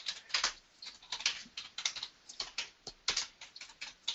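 Typing on a computer keyboard: a quick, irregular run of key clicks, about four or five a second.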